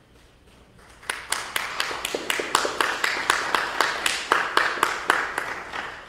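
Congregation applauding: a small group clapping, starting about a second in, with sharp, even claps about four or five a second standing out, fading near the end.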